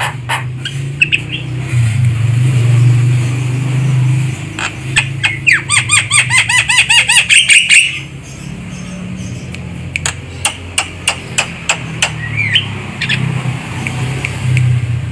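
Javan myna calling: trains of sharp clicking notes, then a fast run of repeated chirps of about five a second from about a third of the way in, and a few short calls later on, over a steady low hum.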